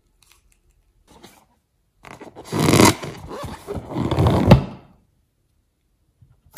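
Inflated rubber balloon handled right against the microphone: about three seconds of rough rubbing and scraping that ends in a sharp click.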